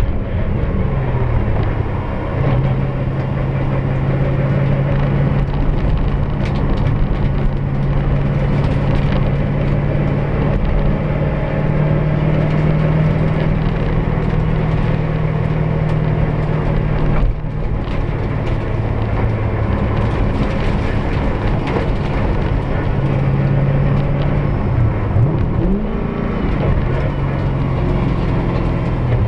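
Toyota 1UZ-FE V8 in a four-wheel-drive Ford Sierra rally car, heard from inside the cabin, pulling at a steady pitch over continuous tyre and road noise on a dirt track. The engine note breaks off briefly a little past halfway, and near the end the revs fall and climb again.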